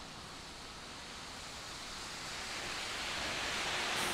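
City traffic on a wet avenue: a steady hiss of tyres on rain-soaked asphalt, growing louder over the last couple of seconds.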